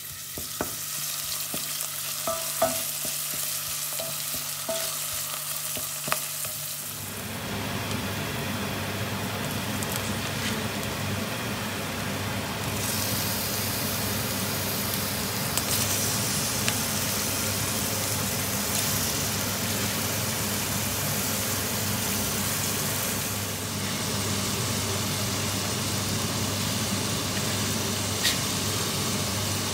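Sliced mushrooms sizzling in oil in a frying pan, with a few sharp clicks. After about seven seconds the sound changes to chopped cucumber, celery and onion sizzling in a steel pot, over a steady low hum.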